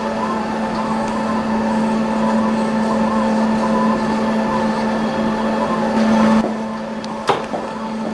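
Five-axis dental milling machine's spindle running with a steady whine while the bur cuts a zirconia blank, the cutting noise wavering over the hum. The sound drops abruptly about six and a half seconds in, followed by one sharp click.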